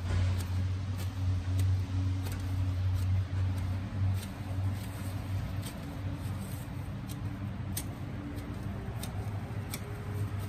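A steady low mechanical hum, like a motor running, with scattered light clicks and ticks over it.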